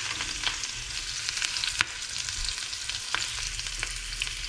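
Cut-up hot dogs sizzling and crackling in hot oil in a frying pan, with a few sharp clicks, the loudest about two and three seconds in.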